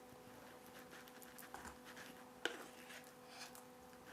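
Faint scraping and light clicks of soft cream cheese being spooned from its tub into a container, with one sharper click about two and a half seconds in, over a steady faint hum.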